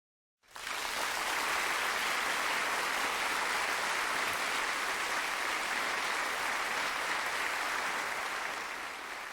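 Audience applause: dense, steady clapping that cuts in about half a second in and begins to die away near the end.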